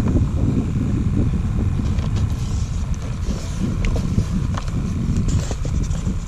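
Wind rumbling on the microphone, with a few light clicks and water sounds as a dip net is worked in a live-shrimp bait bucket.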